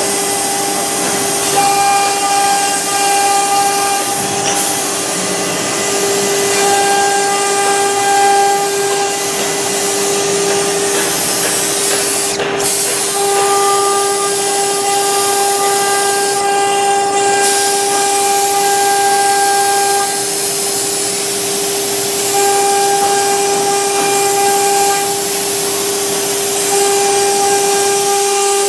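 CNC router spindle running and cutting MDF: a steady high whine with a constant hiss, its overtones fading in and out every few seconds as the cut changes.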